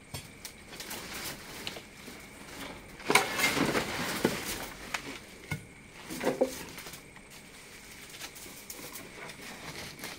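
A tangle of wire mesh rustling, scraping and rattling as it is dragged out of a pile of scrap and rubble, loudest for a second or so about three seconds in, with a few sharp clicks and knocks.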